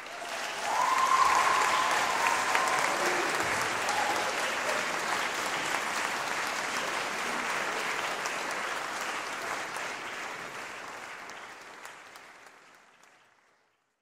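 Audience applauding in a church, with one voice cheering briefly near the start; the applause fades out toward the end.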